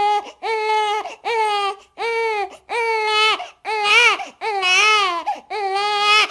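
An infant crying: a string of about eight short, high-pitched wails, each rising and falling in pitch, that stops abruptly near the end.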